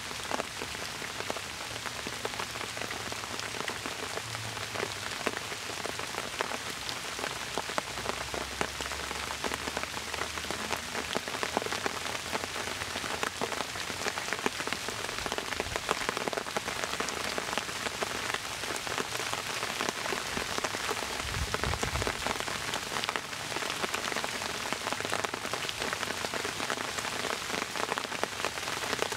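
Steady rain falling on bamboo foliage: an even hiss of many drops, with single drips standing out.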